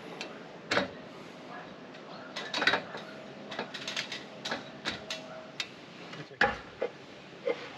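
Reclaimed roof tiles clinking and knocking against each other as they are handled and laid: a scatter of sharp clicks, busiest in the middle, with a heavier knock about six and a half seconds in.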